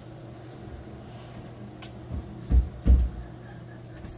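Dull thumps of the glass doors of a Snyder ICU oxygen cage being pushed shut, a few of them about two to three seconds in, the two loudest close together. A steady low hum runs underneath.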